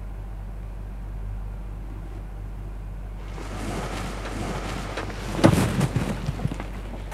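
A steady low hum, with a rushing noise that swells from about three seconds in. A cluster of knocks and thumps comes around five and a half seconds and is the loudest part.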